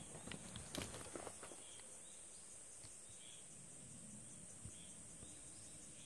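Faint forest ambience: a steady high-pitched insect drone, with a few short rustling crackles in the first second and a half, like steps or movement through dry leaf litter.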